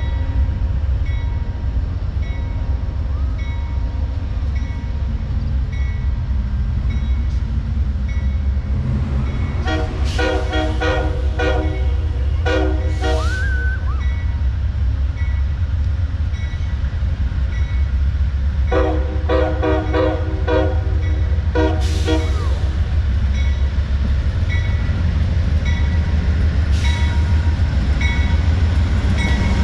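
Amtrak diesel locomotive's air horn sounded in two rapid series of short blasts, about nine seconds apart, over the steady rumble of the departing train. A bell dings about once a second in the background.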